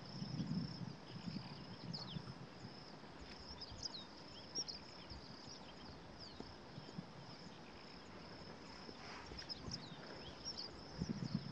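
Bush ambience: a steady high insect drone with many short bird chirps over it. Low rustling and soft knocks come in the first second or so and again near the end.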